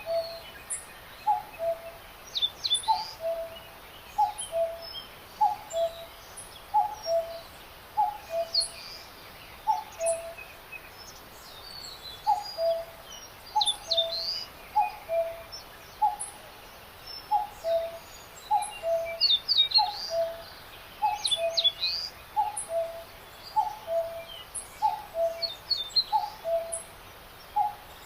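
Birdsong chorus: one bird repeats a falling two-note call about every second and a quarter, while other birds add scattered high chirps and trills over a faint hiss.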